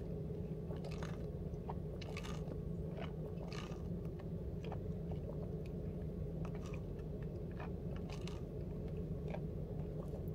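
Milkshake being sucked through a straw: short sucking and slurping noises with small mouth clicks, over a steady low hum.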